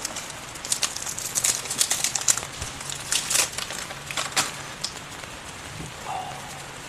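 Heavy rain on a tent: a steady hiss with irregular crackling taps that thin out after about four and a half seconds.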